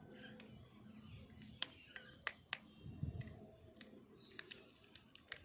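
A cat crunching and chewing on a leg bone: sharp, irregular clicks and cracks of teeth on bone.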